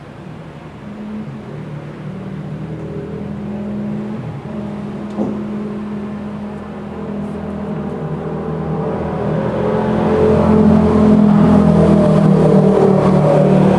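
Long, wordless human vocal tones, held one pitch after another and growing steadily louder.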